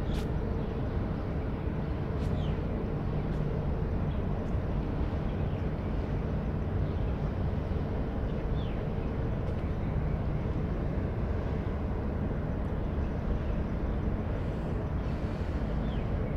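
Low, steady drone of a passing heavy-lift cargo ship's machinery: a dull, even rumble with a faint steady hum in it. A few faint, short, high chirps sound over it now and then.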